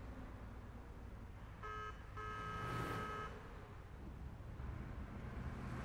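A vehicle horn sounds twice, a short toot and then a longer one of about a second, over a steady low rumble of distant harbor and traffic noise.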